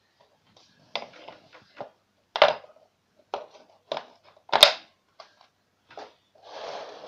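Wooden toy train track pieces knocking and clacking against each other and the laminate floor as they are laid and fitted together: a string of separate knocks, the loudest about two and a half and four and a half seconds in. Near the end a scraping rustle starts.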